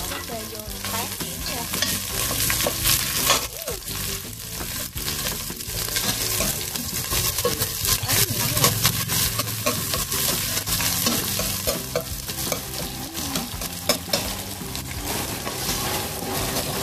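Pâté frying in hot oil in a stainless steel pot, sizzling steadily, while a metal spoon scrapes and clinks against the pot as the slices are mashed and stirred.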